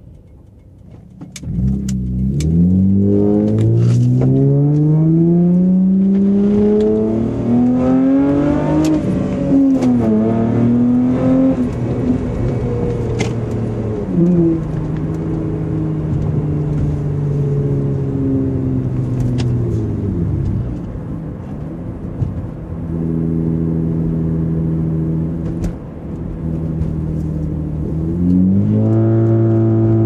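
Honda Accord Coupe's 3.0-litre V6 with an OBX catback exhaust, resonator and muffler deleted, heard from inside the cabin while driving. The engine note climbs for several seconds, drops back and climbs again, settles to a steady cruise with a couple of dips off the throttle, and rises again near the end.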